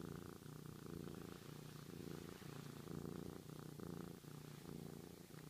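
Scottish Fold cat purring close to the microphone, a steady low purr that pulses in even segments about twice a second.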